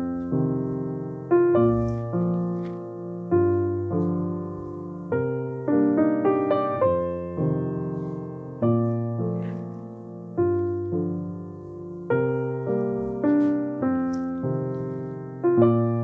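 Background piano music: gentle notes and chords struck about once or twice a second, each left to ring and fade.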